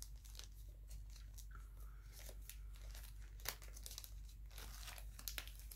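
Faint crinkling and rustling of a packaging wrapper being handled and opened by hand, with a few light clicks.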